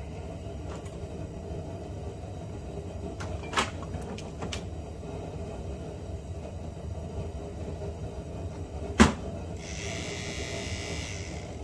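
A few light clicks and knocks, a sharp click about nine seconds in, then a small electric motor starts whirring for the last couple of seconds, over a steady low hum. The motor is a 2007 Honda Odyssey's front blower motor being test-run after its fan wheel was pressed onto the knurled shaft.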